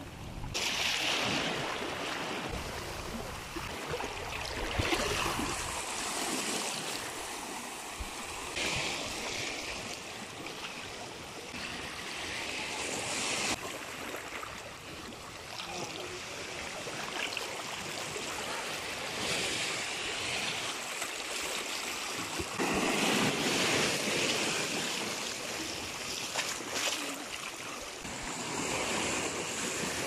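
Small ocean waves washing into a narrow rocky inlet, swirling over rocks and sand and draining back. The wash swells and eases every few seconds.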